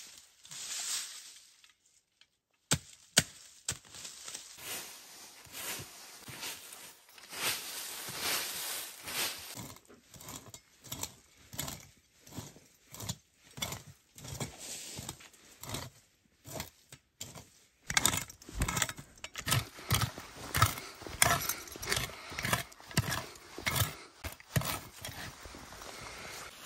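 Tent pegs being knocked into the forest floor with a small hand tool: rustling of dry leaves and tent fabric with a few sharp knocks, then a steady run of strikes about twice a second in the last third.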